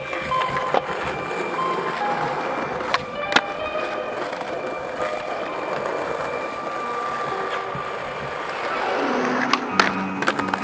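Skateboard wheels rolling over concrete, with sharp clacks of the board about three seconds in and again near the end as it pops up toward a concrete ledge. Music plays over the top.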